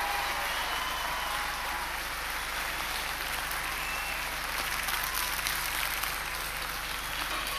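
Audience applauding steadily: the even clatter of many hands clapping.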